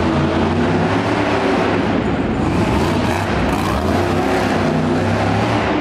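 Monster truck engine running loud and steady under throttle, its pitch shifting a little as the driver works it.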